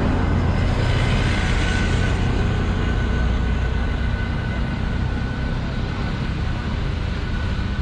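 Steady rushing rumble of a swollen, muddy river below a road bridge, mixed with passing street traffic, heavy in the low end.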